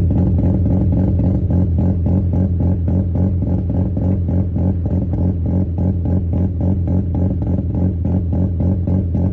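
Mazda RX-7's twin-rotor Wankel rotary engine idling, its exhaust running with a steady, rhythmic "brap brap" pulse several times a second.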